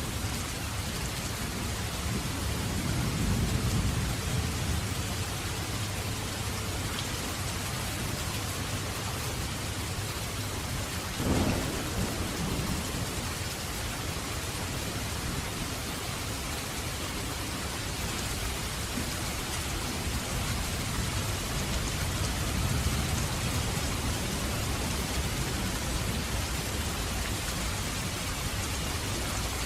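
Steady heavy rain hissing, with low rolling thunder rumbling twice and a short sharp thunder crack about eleven seconds in.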